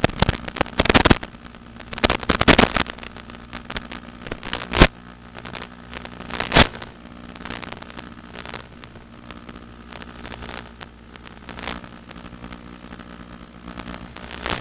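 Hexcopter's electric motors and propellers holding a steady hum as it climbs, broken by sharp clicks and pops that are densest in the first five seconds, with one more a little past the middle.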